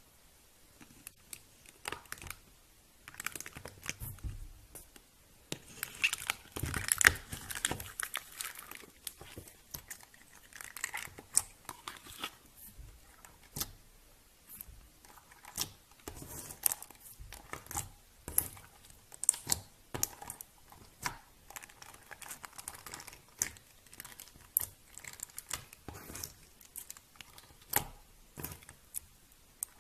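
Slime being worked by hand, making irregular crackling, clicking pops that come in clusters.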